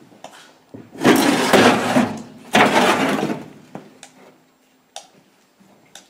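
A metal drawer pulled open by hand: two long scrapes of about a second each, with clicks and rattles from the pans and odds and ends inside.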